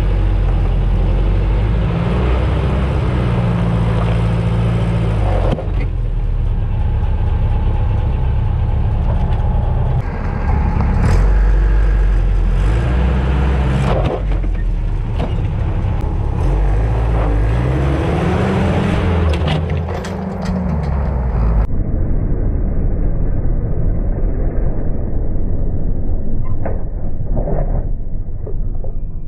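Willys CJ-2A Jeep's engine running under load as it crawls over a square-edged wooden beam. The engine's pitch rises and falls several times as the throttle is worked.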